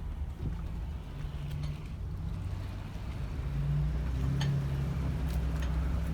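Low steady drone of a 2018 Ford F-150 Raptor with an intermittent rattle heard as a few short sharp clicks, most of them in the second half; the drone grows louder about halfway through.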